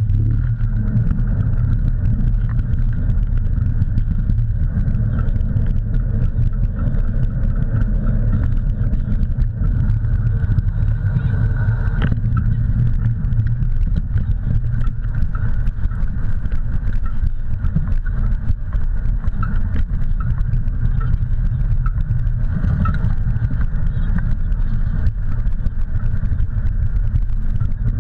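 Steady low rumble of wind buffeting the microphone and wheels rolling over a dirt trail as a dog pulls a dryland mushing rig along at speed, with scattered small ticks of gravel.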